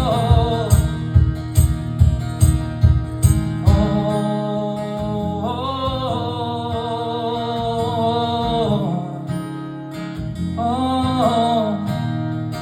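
Live acoustic guitar strummed in a steady beat, about two to three sharp strums a second at first. It then settles into sustained chords under long held melody notes, in a wordless passage of the folk song.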